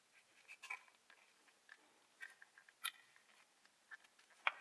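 Faint, scattered clicks and crinkles of a thin plastic packaging tray being handled as kinetic sand is packed into it, a little louder about three seconds in and near the end.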